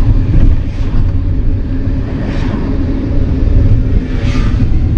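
Inside the cab of a Volkswagen camper van driving at town speed: steady low engine and road rumble, with two brief swells of hiss, about two seconds in and again near four.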